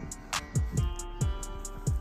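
Background music with a steady hip-hop-style beat: deep kick-drum hits that drop in pitch, quick hi-hat ticks and held melodic notes.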